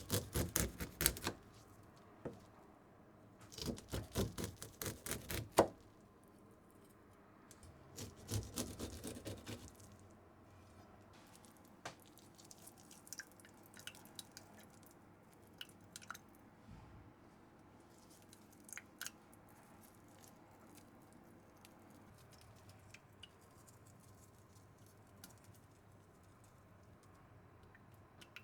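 Kitchen food-preparation sounds: three bursts of rapid scraping or cutting strokes in the first ten seconds, then scattered light clicks and taps.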